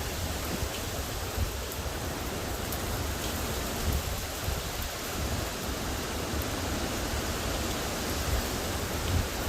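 Steady rushing noise of hurricane wind and rain, with wind buffeting the microphone in uneven low thumps.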